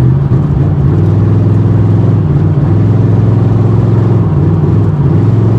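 Ford Crown Victoria Police Interceptor's 4.6-litre V8 running steadily at highway cruising speed, with a low drone whose pitch dips slightly a few times. The engine carries a known cylinder 6 misfire.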